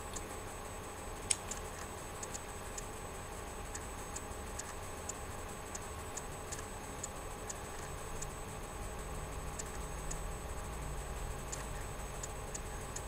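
Light, fairly regular ticks, about two a second, over a faint steady hum.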